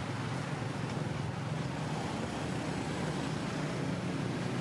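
Steady low background drone, even throughout, with no distinct calls or knocks.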